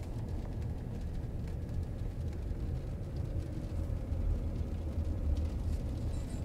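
Road noise inside a car's cabin at highway speed: a steady low rumble, with no music playing.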